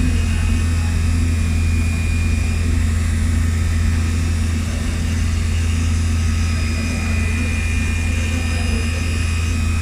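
Milling machine running steadily during a thread-milling operation: a constant low hum with a faint high whine that fades out after a couple of seconds and returns near the end.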